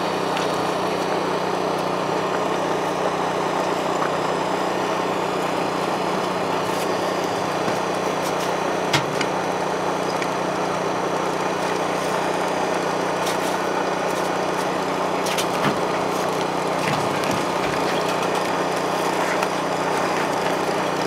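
Small engine running steadily at a constant speed, with a few light knocks or clicks over it.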